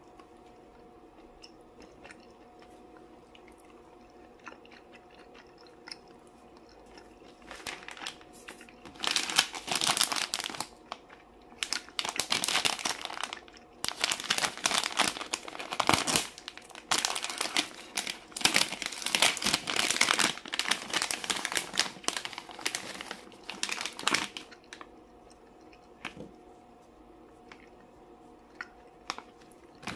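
Plastic gummy-candy pouch crinkling as it is handled and turned over, in a long loud spell through the middle. Before and after it, only faint small clicks of the gummies being handled.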